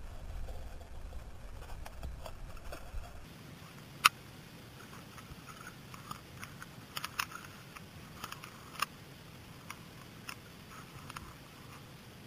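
Muffled underwater sound picked up by a submerged camera: a low rumble for about the first three seconds, then a faint hiss with scattered sharp clicks and ticks, the loudest about four seconds in and a cluster a few seconds later.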